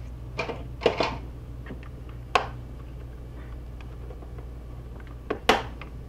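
Several sharp plastic clicks and snaps as a pry tool works along the seam of a Dell Inspiron 24 all-in-one's plastic back cover, its retaining clips popping loose one at a time. The loudest snaps come about a second in and near the end, over a steady low hum.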